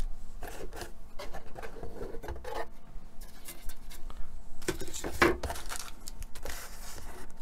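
Handling noise from unpacking plastic model-kit parts from a cardboard box: scattered light knocks, taps and scrapes of plastic on cardboard, with a louder knock about five seconds in.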